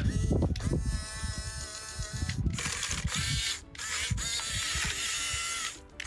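Huina 1569 1:16-scale RC bulldozer's electric track motors and gearboxes whining as it drives. The whine stops briefly twice and starts again, with low knocks as the blade pushes snow and ice.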